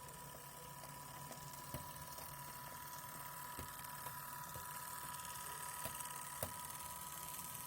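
Model VL19 electric locomotive and passenger cars running: a steady thin motor whine with irregular wheel clicks over the rail joints, growing slowly louder as the train arrives.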